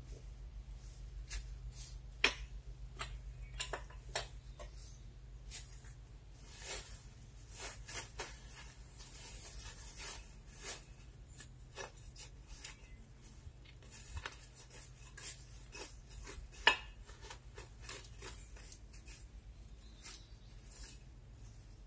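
Irregular scraping and rubbing of hands working soil and handling bricks, with two sharper clicks, one about two seconds in and one about three-quarters of the way through, over a faint steady low hum.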